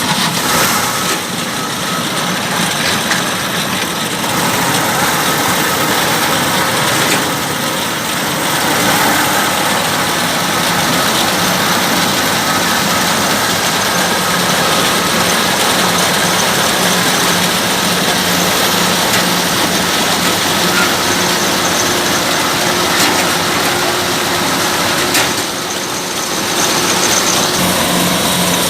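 Kubota DC-105X combine harvester running steadily under load, its diesel engine and threshing machinery making a loud, even noise with a constant low hum.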